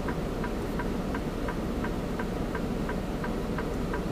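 Freightliner semi truck's diesel engine idling, heard inside the cab, with a steady light ticking about three times a second over it.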